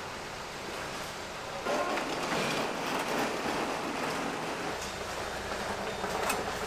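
A cloth rubbing across a stainless steel table top as it is wiped down: a steady dense rubbing noise that starts about two seconds in.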